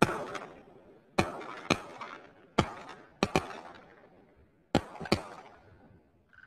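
A volley of shotgun fire at a passing flock of cranes: about nine shots over five seconds, several in quick pairs, each with a rolling echo.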